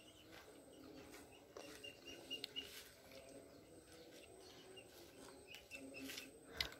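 Quiet background of small birds chirping, short high notes in little runs. A few soft clicks of a metal spoon against a ceramic bowl come through, the sharpest near the end.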